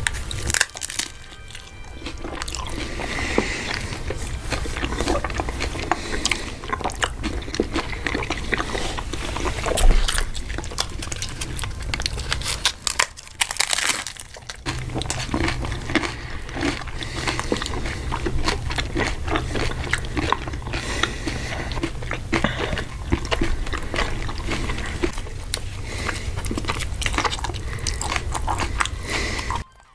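Close-miked eating sounds: repeated sharp crunching of hard-shell tacos being bitten into, and chewing. There is a brief lull about halfway through.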